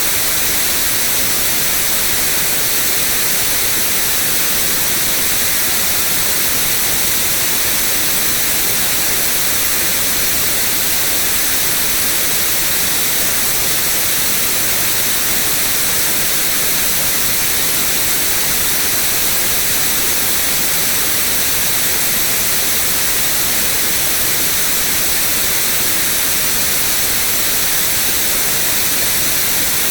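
Continuous white noise: an even, unchanging hiss, brightest in the treble.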